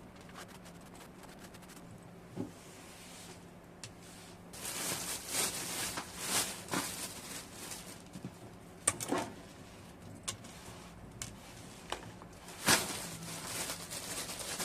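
Hand-work noises: stretches of scraping or rubbing with scattered light taps and clicks.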